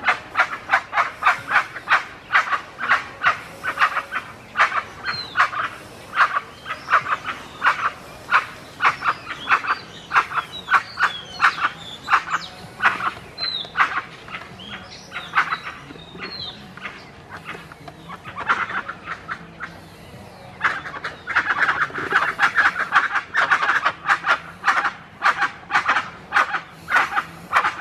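A group of dusky-legged guans calling: short calls repeated two or three a second, thickening into a dense chorus near the end. Brief rising whistles sound over them in the middle.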